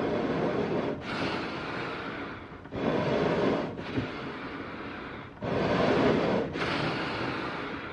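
Eerie animal breathing in a slow rhythm: a louder breath of about a second alternates with a longer, softer one, each breath an airy rush with no voice in it, about three times over.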